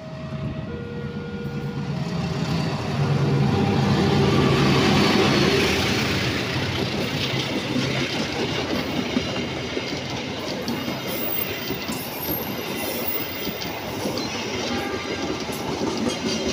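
Diesel locomotive passing close by, its engine loudest a few seconds in. The passenger coaches then roll past with a steady rumble and clatter of wheels on rail and occasional high wheel squeal. A steady two-tone warning signal sounds for the first couple of seconds.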